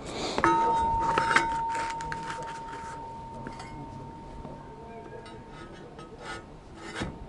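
A steel part is struck with a clink and rings with one clear tone that fades away over about four seconds. Light metallic clinks and handling knocks follow.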